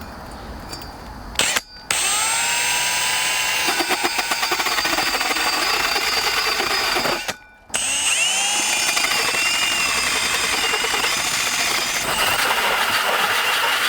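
Power drill turning a hole saw through the cabin wall. It starts about two seconds in, stops briefly about seven seconds in, then runs again. The motor's pitch wavers as it loads up in the cut.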